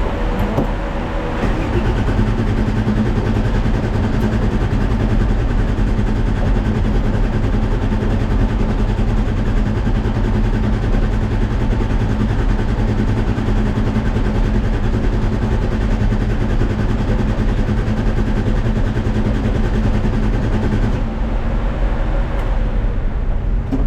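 Car engine running at a steady speed under a noisy rush, its tone shifting slightly about a second and a half in and again near the end.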